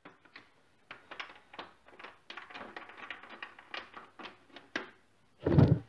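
Light, irregular clicks and taps from handling a stand mixer that has been switched off, as its tilt head is unlocked and raised out of the dough.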